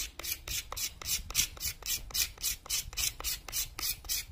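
Steel card scraper drawn back and forth over a round wooden peg in quick, even strokes, about fifteen in all, each a short dry scrape. The peg is being finished down to a fit.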